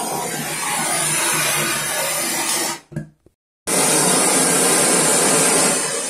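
Handheld gas torch burning with a steady hiss as it heats a copper pipe joint at a brass shower valve for soldering. The sound cuts out for about a second around three seconds in, then resumes and eases off near the end.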